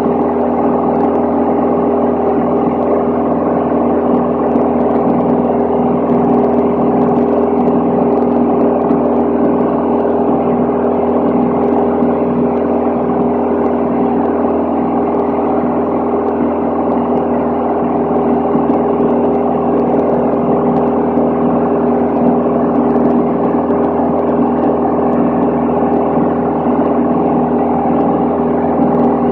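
Van's RV-10 light aircraft's piston engine and propeller droning steadily in level flight, heard from inside the cabin as a loud, unchanging hum of several held tones.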